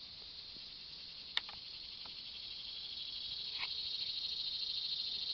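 High, steady drone of insects, growing louder through the second half, with a sharp click about a second and a half in.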